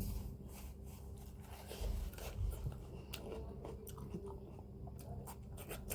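Close-miked chewing of a mukbang meal of instant noodles: wet mouth sounds with many short, irregular smacking clicks.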